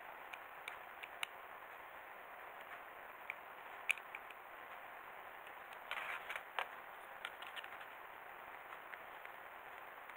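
A small screwdriver working on plastic Robi 2 robot kit parts: scattered faint ticks, with a short cluster of clicks and scrapes about six seconds in, over a steady hiss.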